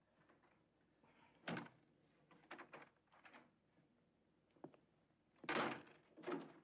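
A door opened and shut: a knock about one and a half seconds in, a few light clicks and steps, then the loudest thump near the end as it closes, followed by a smaller knock.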